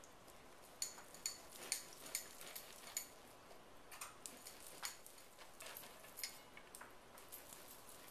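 Serrated bread knife sawing through the crust of a sourdough loaf: faint, irregular crackles and ticks as the crust breaks.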